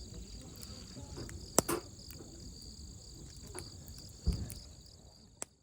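Wood campfire crackling, with sharp pops about one and a half seconds in and again just past four seconds, over a steady high-pitched chirring of insects. The sound fades out at the end.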